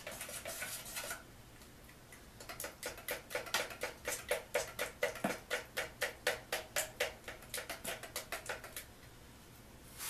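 Wooden stir stick stirring paint in a nearly empty metal gallon paint can, scraping and knocking against the can in quick even strokes, about four a second, after a short pause near the start. The old paint needs more mixing than hand stirring gives it.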